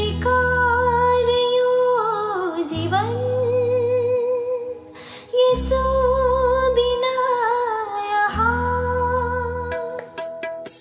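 A woman singing a Nepali song over an instrumental backing track, in long held phrases with vibrato, with a bass line underneath and short pauses between phrases.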